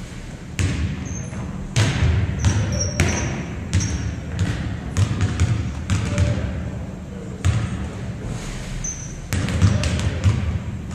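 Volleyballs being struck and bouncing on a hardwood gym floor: a string of sharp thuds, each echoing in the large hall.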